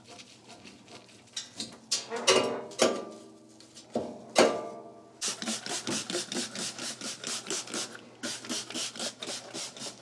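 Scrubbing grime out of the grooves around a washing machine's lid: a few scattered scrapes, then from about halfway a steady back-and-forth rubbing at about four strokes a second.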